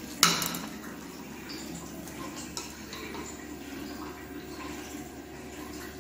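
A hand mixing a wet batter of grated bottle gourd, gram flour and spices in a steel bowl, a soft squelching and rustling, with one sharp clink against the steel bowl just after the start.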